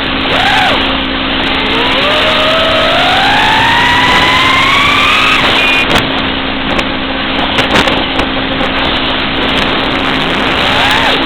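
Five-inch FPV racing drone's motors whining over a heavy rush of noise. A little after the start the pitch climbs steadily for about three and a half seconds, then drops away suddenly. Short rises and falls in pitch come near the start and again near the end.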